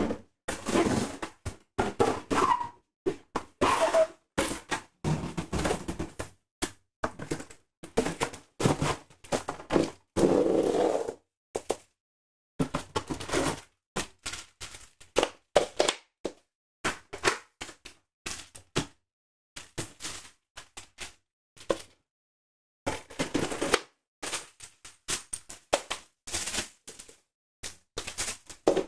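Cardboard box, moulded pulp insert and plastic-bagged parts being handled during an unboxing: an irregular run of thunks, knocks and rustling, with abrupt gaps of silence between them.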